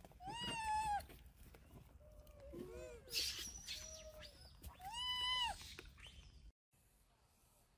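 Macaques calling around a feeding: a string of high-pitched calls, each rising then falling in pitch, with a loud call about half a second in and another about five seconds in and softer, shorter calls between them. The calls stop abruptly about six and a half seconds in.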